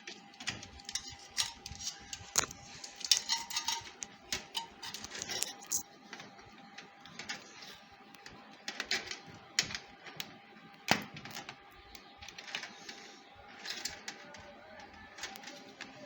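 Irregular plastic clicks, taps and rustling of PC power cables and connectors being handled and pushed into place, with a faint steady tone underneath.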